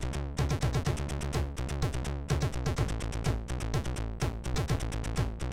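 Commodore 64 chiptune played by the MOS 6581 SID sound chip: a steady driving beat of sharp drum hits over a held bass line, with buzzy synth tones.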